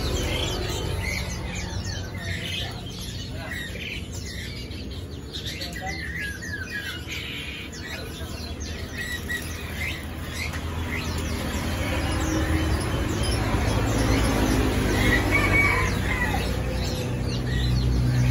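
Small caged birds chirping and twittering in many short calls, over a steady low background hum.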